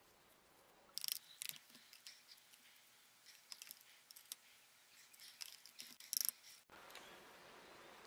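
Irregular small clicks and scrapes of a Dyson vacuum's plastic filter frame being handled and picked clean with rubber-gloved hands. The sharpest clicks come about a second in and again near the end.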